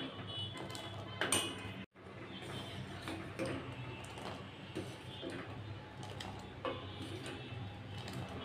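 Steel ladle stirring and scooping milk with chhena in a steel saucepan: light clinks and scrapes of metal on metal over a steady low hum.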